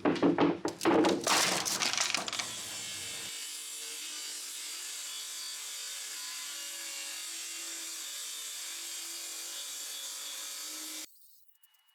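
Quick, loud rasping strokes on wood for about two seconds, then a steady, even hiss that cuts off suddenly near the end.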